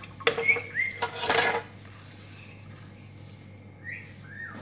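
Dishes and utensils clattering on a granite kitchen counter, loudest in the first second and a half, then quieter. A couple of short high sliding squeaks are heard, one near the start and one near the end.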